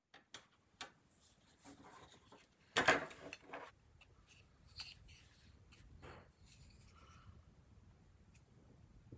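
Close handling of a thin metal wire against a carved wooden handle: scattered light clicks and taps, with one louder rub about three seconds in.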